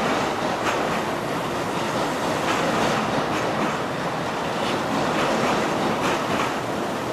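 Kintetsu red-and-white electric commuter train running past, a steady rolling rumble with the clickety-clack of its wheels over the rail joints.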